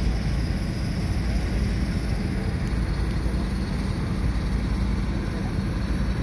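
Heavy diesel engines of farm tractors and a bogged grain truck running, a steady low rumble.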